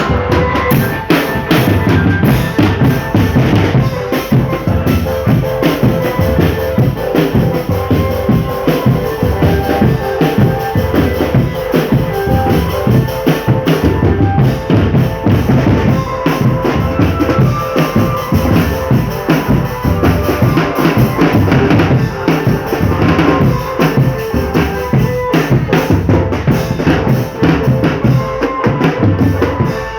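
Marching drumband playing a steady beat on snare and bass drums with rimshots, with a melody of held notes running above the drums.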